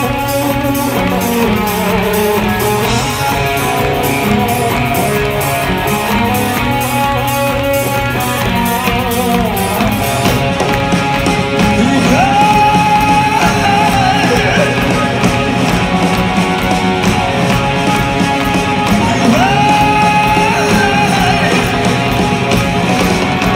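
Live rock band playing at full volume: distorted electric guitar, bass and a steady drum beat with cymbals. A long held high note comes in about halfway through and again near the end.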